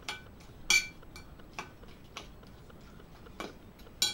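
Metal utensil clinking against a glass salad bowl while mixing: about six separate clinks with a brief ring, the loudest about three-quarters of a second in.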